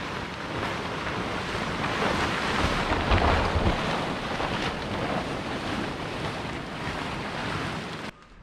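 Large plastic tarpaulin sheets rustling and crackling as they are pulled and spread out, with wind buffeting the microphone. The sound cuts off suddenly near the end.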